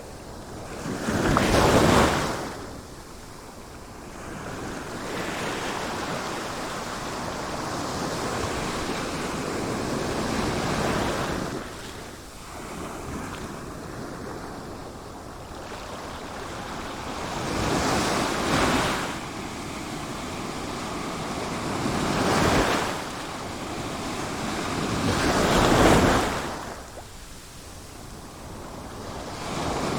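Sea waves breaking and washing in over a steady rush of surf; four big waves swell up and fade, with a gentler one about a third of the way through.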